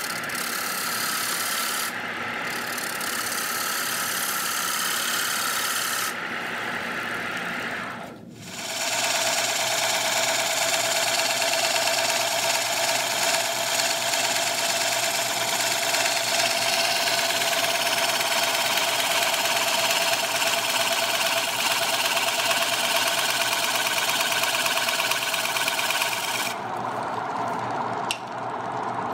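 Wood lathe running while a bowl gouge cuts the outside of a spinning wooden bowl, a steady rushing hiss of the cut over the motor's hum, with a brief dip about eight seconds in. Near the end the cutting stops and only the lathe's running hum remains.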